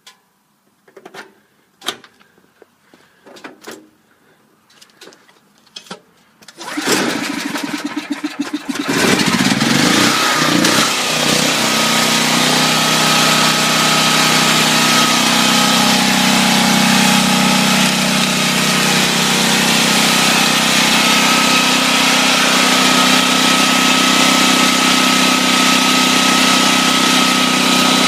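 Generac XG8000E portable generator's single-cylinder engine being pull-started cold with the choke out: a few scattered clicks and knocks, then about seven seconds in it cranks, catches about two seconds later and settles into a loud steady run.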